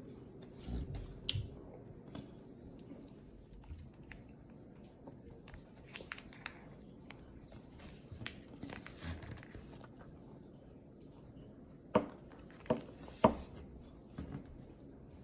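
Snacks being handled and eaten: scattered soft crinkles, crunches and chewing, with three sharp clicks or taps close together about twelve seconds in.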